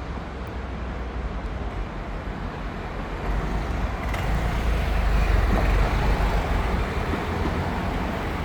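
Road traffic: a continuous low vehicle rumble that swells to its loudest a little past halfway and then eases off, as of a vehicle passing close.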